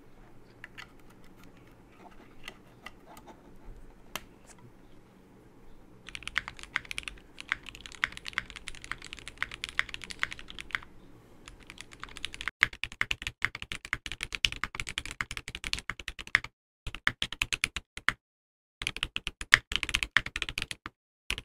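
Typing test on a KBDFans Tofu65 2.0 aluminium 65% keyboard with C³ Banana Split linear switches, an aluminium plate, GMK Oblivion keycaps, a 60 g silicone bowl mount and no foam. A few faint single keystrokes at first, then a fast, steady run of keystroke clacks from about six seconds in, broken near the end by a few abrupt silent cuts.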